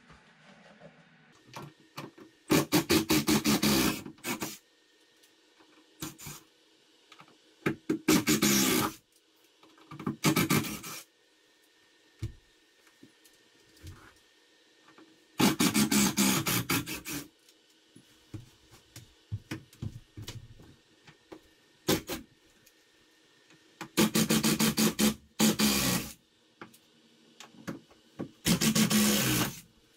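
Cordless power driver backing out screws in about six short bursts of one to two seconds each, each run a fast rattling chatter. Small knocks and handling noise come between the bursts.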